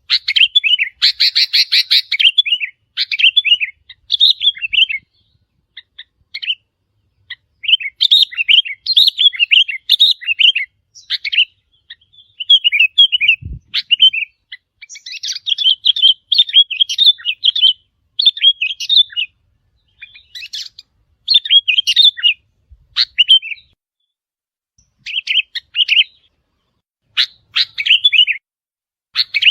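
Sooty-headed bulbul calling: short, bubbly chirping phrases repeated over and over with brief pauses between them. A single soft low thump comes partway through.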